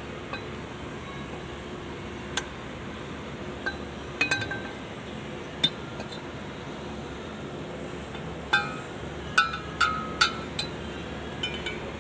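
Steel tractor propeller shaft tube and coupling sleeve being handled, clinking and knocking against metal: about eight sharp clinks, the loudest bunched in the second half, several leaving a short metallic ring, over a steady background hiss.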